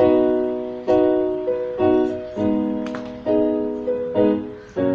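Piano playing sustained block chords, one struck about every second and left to ring and fade, with no voice over them.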